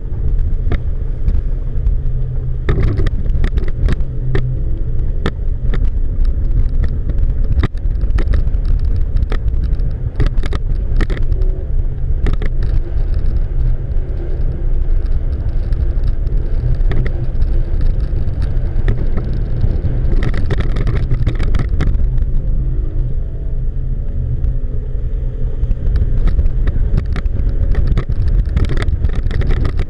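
Twin outboard motors running hard under load, pulling a grounded boat free on a towline: a steady deep rumble with frequent sharp knocks and pops.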